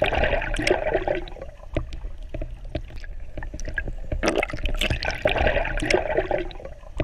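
Water sloshing and gurgling in two bursts, one at the start and one about four seconds in, over a steady low rumble.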